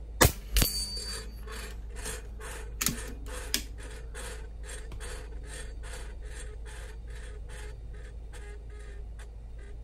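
A single shot from a moderated .25-calibre AEA Challenger Pro PCP air rifle, then the pellet striking a steel animal-silhouette target about a third of a second later. The struck target then spins on its metal hanger, scraping and ticking about three times a second as it slows.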